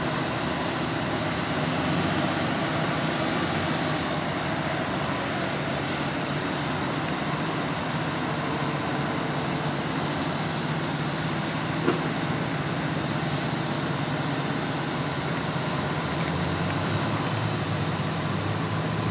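Steady low rumble of idling heavy vehicles, the diesel engines of a parked fire engine and ambulance, with one sharp click about twelve seconds in.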